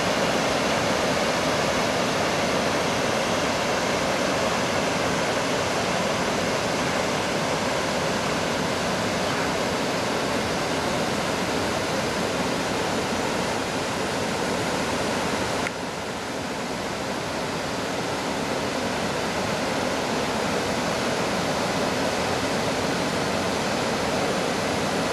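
Waterfall rushing steadily as white water cascades over rock ledges into a pool below. The sound dips slightly about sixteen seconds in.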